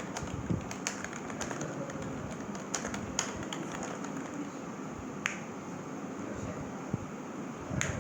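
Keys of an old membrane computer keyboard being typed: irregular soft key clicks, a quick run of keystrokes in the first three seconds or so, then only a few single presses spaced apart.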